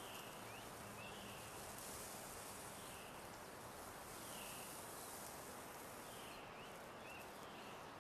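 Faint outdoor nature ambience: a steady soft hiss with brief, quiet chirps every second or so.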